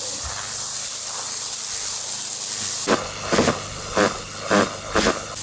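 Petrol pressure washer's water jet blasting dirt off a wooden boat's cabin roof: a loud, steady hiss with a faint low hum beneath. In the second half, a person's voice cuts in several times in short bursts.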